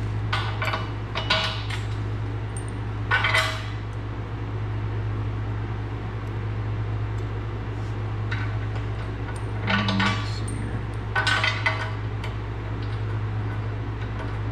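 Steel bolts, washers and nuts clinking against the steel frame of a 20-ton H-frame shop press as they are fitted and threaded on by hand, in several short bursts of light metallic clicks over a steady low hum.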